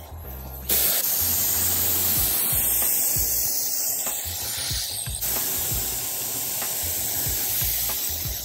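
Compressed-air gravity-feed spray gun hissing as it sprays gel coat, starting suddenly about a second in and running steadily, with a brief dip about five seconds in.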